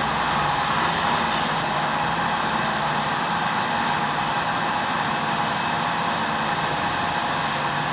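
Kubota D905 three-cylinder diesel engine running steadily at a constant speed.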